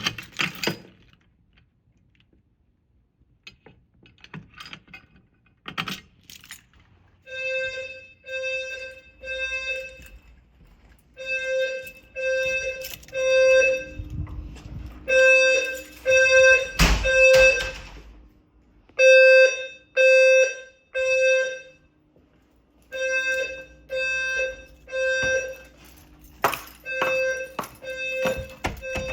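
Fire alarm sounder bases sounding a low tone of about 520 Hz in the three-pulse temporal-3 evacuation pattern: three half-second beeps, a pause, then again, starting after a few seconds of clicks. A few sharp knocks come in between, one loud one partway through.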